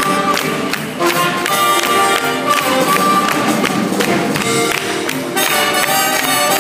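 Live theatre orchestra playing an upbeat show tune, with strings and brass over a steady beat.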